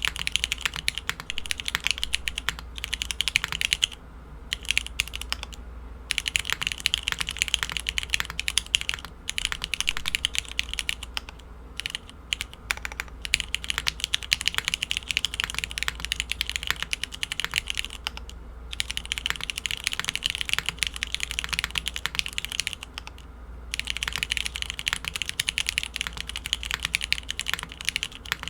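Fast, steady typing on an Adamas65 65% mechanical keyboard with a top-mounted aluminium plate and Cherry MX1A Black linear switches, lubed with a Krytox 105/205 mix and fitted with 62.5 g springs. Bursts of rapid keystrokes are broken by a few brief pauses.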